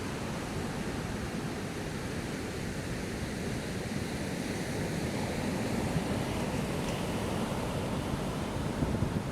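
Ocean surf washing onto the beach in a steady wash of noise, with wind buffeting the microphone near the end.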